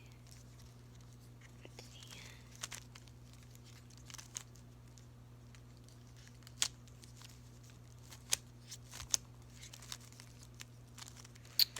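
Plastic Rubik's Cube being twisted by hand: irregular clicks and short rasps as the layers turn, over a steady low hum.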